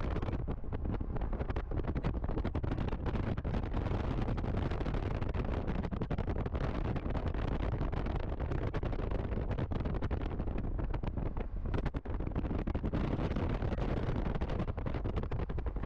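Wind buffeting the microphone of a moving car, over a steady rumble of road noise.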